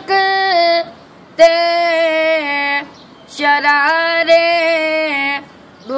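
A boy singing an Urdu dua (devotional supplication) unaccompanied in a high voice: long held phrases with short pauses for breath between them.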